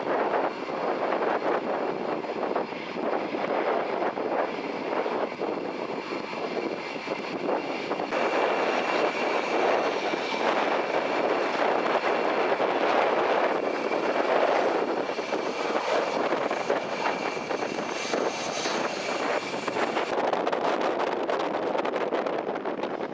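Eurofighter Typhoon jet engines running: a steady rushing noise with a thin high whine over it, the whine clearest through the middle of the stretch.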